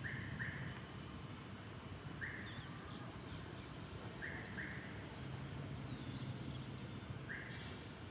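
Faint bird chirps: short notes, some in quick pairs, with a few higher twitters between them, over a low steady hum.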